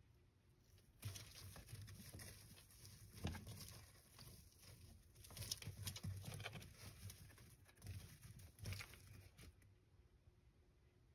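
Faint, irregular rustling and scratching of a savanna monitor's claws and body moving over bark-chip substrate. It comes in scattered clusters and dies away near the end.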